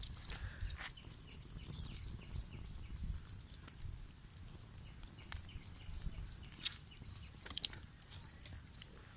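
Chicken clucking in short repeated calls, with a few sharp clicks or knocks in between.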